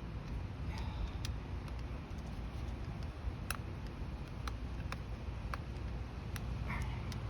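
Scattered light clicks and ticks, irregularly spaced, of metal parts and tools being handled while a small-engine carburetor is refitted, over a steady low rumble.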